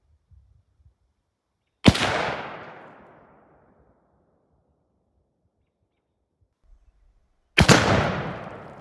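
Two gunshots about six seconds apart, one about two seconds in and one near the end. Each sharp crack is followed by a rolling echo that fades over a second or two.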